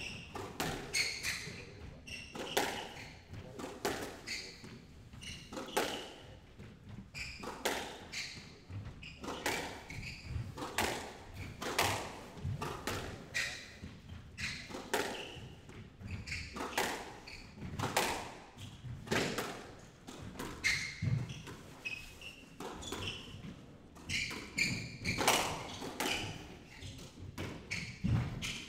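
Squash rally: the ball is struck by rackets and smacks off the court walls in a steady exchange of sharp hits, a little more than one a second.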